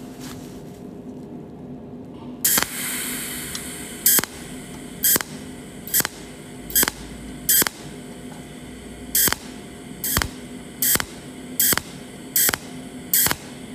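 A pulsed cold-welding (micro-TIG) machine fires short arc pulses through a tungsten electrode, spot by spot, to close a crack in an iron sheet. There are about a dozen sharp zaps, roughly one every three-quarters of a second, starting a couple of seconds in. A steady low hum runs underneath.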